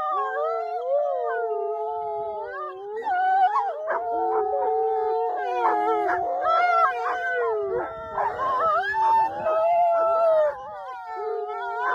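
A pack of wolves howling together: several long, overlapping howls at different pitches, with shorter, broken yipping calls mixed in from about three seconds in.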